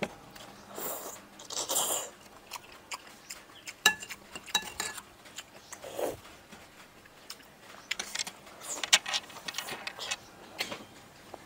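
Close-up eating sounds of balut (boiled fertilized duck egg) with fresh herbs: a metal spoon clinking against a ceramic bowl, with a ringing clink about four seconds in, a sip slurped from the spoon, and chewing and biting.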